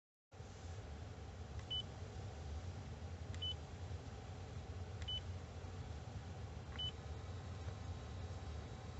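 Four button presses on a car's climate control panel, each a faint click followed by a short high beep, about every 1.7 seconds, over a steady low hum.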